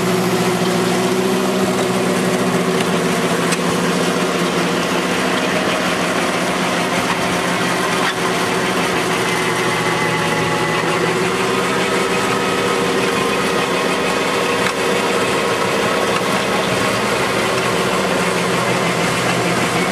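Tractor engine running steadily under load while the Valentini stone crusher it drives grinds up the gravel road surface, a continuous mechanical drone with grinding noise over it.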